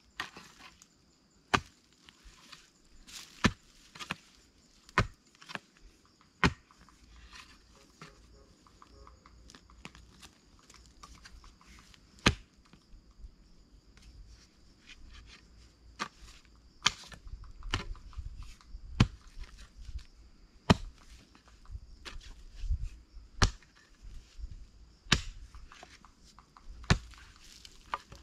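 A hoe striking into forest soil, hit after hit, every second or two with a pause of several seconds partway through; each stroke is a sharp thud and chop of the blade in earth and roots.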